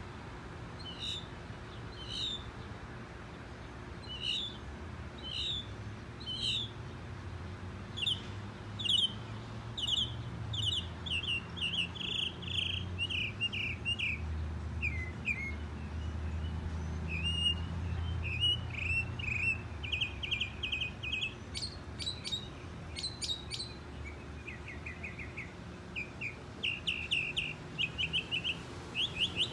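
Mockingbird singing: a long string of short, bright phrases, each repeated several times in quick succession before the bird switches to a new one. The song is sparse at first and becomes a dense, rapid run of repeated notes after several seconds.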